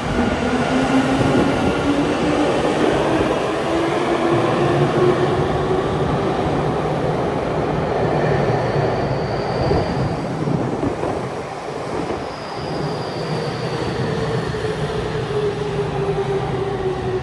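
Tokyu 5050 series electric train's Hitachi IGBT-VVVF inverter whining as the train pulls along the platform, over loud wheel and running noise. The whine climbs steadily in pitch for the first several seconds as the train accelerates, then a second tone slowly falls away in the second half.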